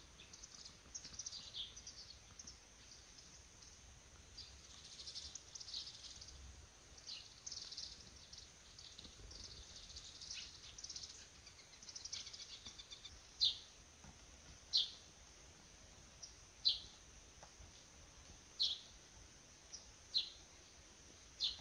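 Small birds chirping and twittering, with a single short falling call repeated every second or two in the second half.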